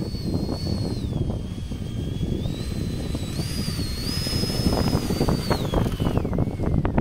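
Wind buffeting an outdoor microphone, with scattered short rustles. A thin, high electric whine wavers up and down over it and glides down and fades near the end.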